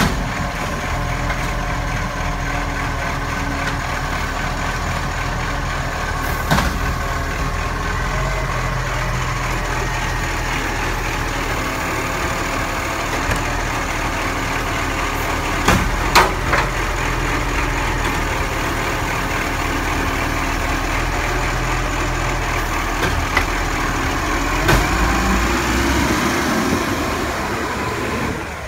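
Iveco side-loader garbage truck's diesel engine running steadily while its hydraulic arm lifts and tips wheelie bins, with a few sharp bangs as the bins knock against the hopper. Near the end a sound rises in pitch.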